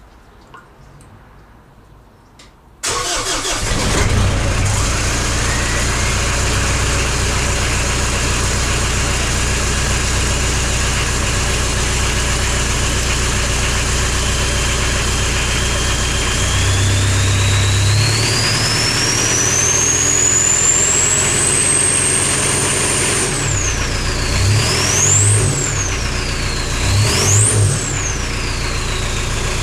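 Mitsubishi L200 Warrior turbo-diesel cold-starting at −5 °C, catching about three seconds in and then running steadily through twin stack exhausts. Later its turbo whistle climbs steadily in pitch for several seconds as the revs are held up, then rises and falls twice with two quick blips of the throttle.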